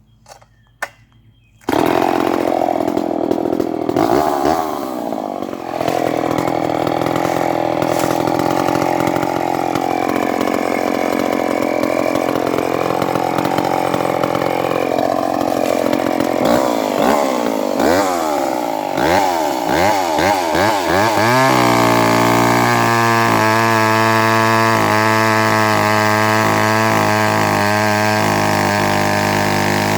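Vintage Skil 1629 68cc two-stroke chainsaw starting up about two seconds in and running loud, its engine speed rising and dropping as it works through small gum logs, then held at a steadier high speed for the last several seconds.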